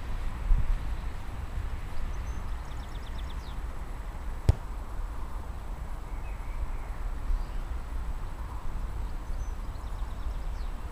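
Wind rumbling on the microphone in an open field, with faint bird chirps and one sharp click about four and a half seconds in.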